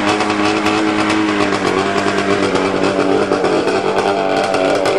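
A snowmobile's two-stroke engine, running through an open-can silencer, revved by hand so the torque-converter clutch grabs the belt and the pulleys change size. It runs steadily, climbs in pitch about a second and a half in, and settles back down near the end.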